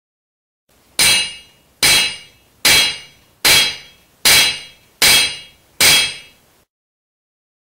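Seven evenly spaced hammer blows on metal, each ringing and dying away before the next.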